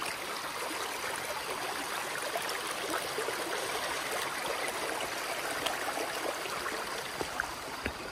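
Small rocky mountain creek rushing and burbling steadily over stones, with a few light knocks near the end.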